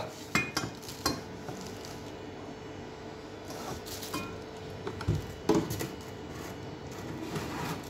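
Amboss stainless steel teapot set being handled in its cardboard box: a few scattered light metallic knocks and clinks, with its plastic wrapping rustling.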